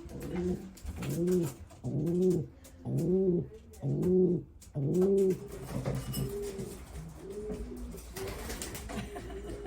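Racing pigeons cooing: a string of rising-and-falling coos, loud and roughly one a second for the first five seconds, then softer for the rest.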